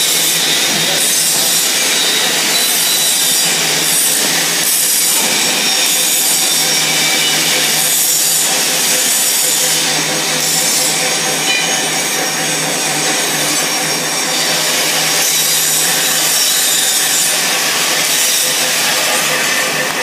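Rotating gusseting machine for plastic film running, drawing the film tube off its roll through the rollers: a steady, loud rushing hiss over a low hum.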